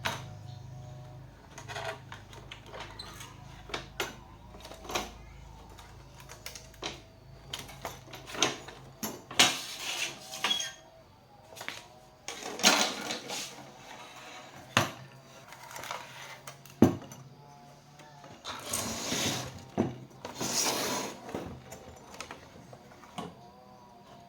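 Irregular handling noises: sharp clicks and knocks with several short scraping rasps, over a faint low hum.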